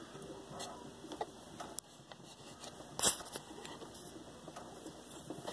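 Light clicks and taps of small parts being handled on a workbench, with one sharper knock about three seconds in.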